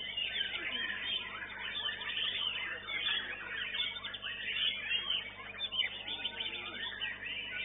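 Many white-rumped shamas singing at once, a dense tangle of rapid overlapping whistles, trills and chatter, heard through a CCTV microphone that cuts off the highest notes.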